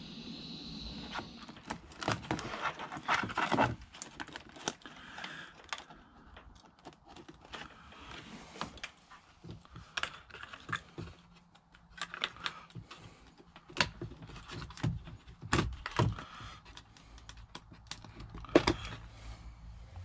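Irregular small clicks, taps and light rattles of hands working the wiring at a plastic dash switch panel: crimped spade connectors being pushed onto the rocker switch's terminals, with wires and plastic knocking about.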